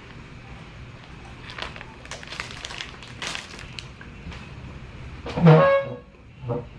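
Snack wrapper crinkling and crunchy clicks while eating, then about five seconds in a loud, short pitched vocal sound from the man, with a shorter one just before the end.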